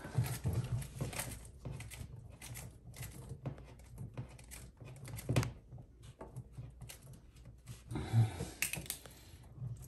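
Scattered small clicks and taps of a hand working a bidet supply hose's fittings under a toilet tank, threading the connection into place. There is a louder tap about five and a half seconds in and a few louder knocks about eight seconds in.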